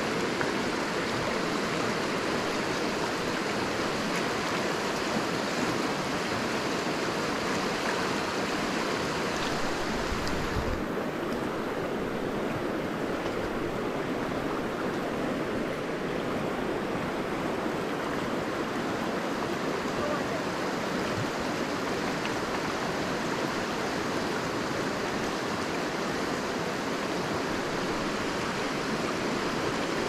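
Glacier-fed river rushing fast over a gravel bed in a steady, even rush of water. About ten seconds in, the hiss loses some of its highest part while the rush carries on.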